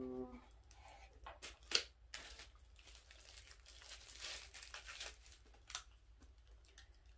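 Clear plastic packaging bag crinkling as a small part is pulled out of it, with scattered sharp clicks, the sharpest about two seconds in.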